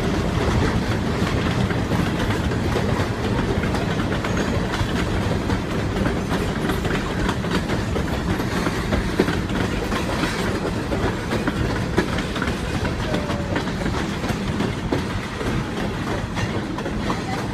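Freight cars of a long CSX train rolling past in a steady rumble, the wheels clicking over the rail joints.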